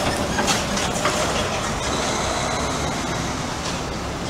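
Steady city street noise: a loud, even traffic rumble with a few faint clicks about half a second in.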